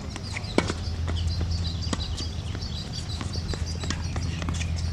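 Tennis ball struck by a racket and bouncing on a hard court during a rally: sharp pops a second or more apart, the loudest about half a second in and another at the end, with birds chirping over a low steady rumble.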